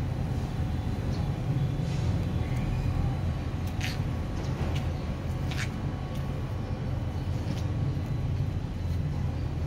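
A steady low rumble of background noise, with a few short sharp clicks about four and five and a half seconds in.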